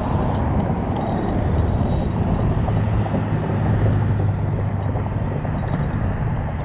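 Steady low rumble of a passing motor vehicle, its engine hum strongest about halfway through.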